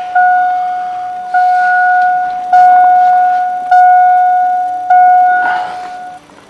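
Electronic warning chime of a 2002 GMC 2500 pickup, a single steady ding repeating about every 1.2 seconds, five times, each fading until the next, stopping about six seconds in.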